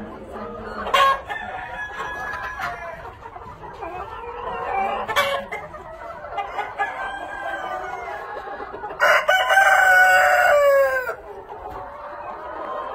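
A flock of Lavender Orpington chickens clucking and calling over one another, with a rooster crowing once about nine seconds in, a call of about two seconds that drops in pitch at the end and is the loudest sound.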